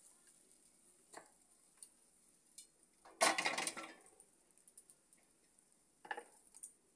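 Metal kitchenware clattering as fried corn is tipped from an aluminium pot onto a steel plate: a few light clicks, then a louder metal-on-metal clatter a little after three seconds in and a shorter one near the end.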